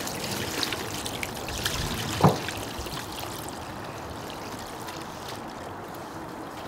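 Leaf dye bath liquid pouring from a pot through a metal strainer into a plastic bucket, trickling and splashing. There is a brief thump about two seconds in. The flow thins to a light trickle after about three and a half seconds.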